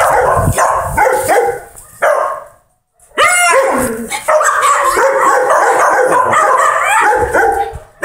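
Several kennelled shelter dogs barking and yelping, the barks overlapping. The barking breaks off for about half a second partway through, then comes back dense and continuous.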